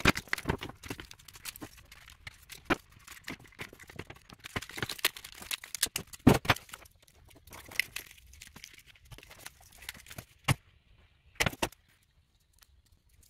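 A battery contactor block's plastic housing and wiring being handled: irregular clicks, rattles and rustling, with a sharper knock about six seconds in and a few more near the end.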